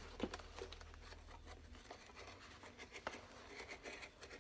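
Faint scraping and scattered small clicks of a hand tool worked along the edge of a Goodyear-welted boot's leather sole as the sole is being taken off.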